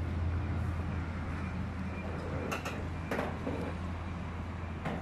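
A steady low hum with a few short, sharp knocks, the first about two and a half seconds in, another about half a second later and a last one near the end.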